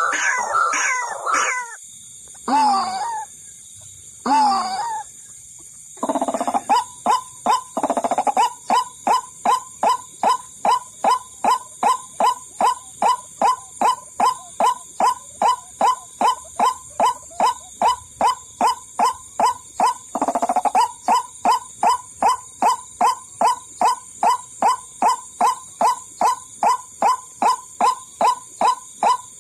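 White-breasted waterhen (ruak-ruak) calling. A few separate calls come in the first five seconds, then from about six seconds in a long run of short, evenly repeated notes, about two to three a second.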